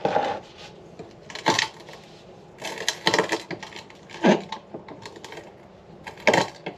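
Homemade vise-mounted steel rock crusher cracking small ironstone 'hot rocks' into smaller pieces: about five sharp metallic clicks and knocks at irregular intervals, some followed by a short falling squeal.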